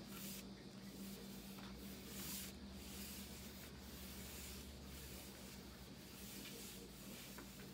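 Soft rustling of paper book pages being turned, with hands brushing over the paper in a few soft swishes, the clearest just after the start and around two seconds in. A faint steady low hum runs underneath.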